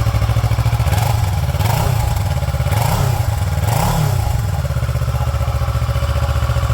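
Kawasaki Versys 650's parallel-twin engine idling through its stock, undrilled muffler, with three short throttle blips between about one and a half and four seconds in.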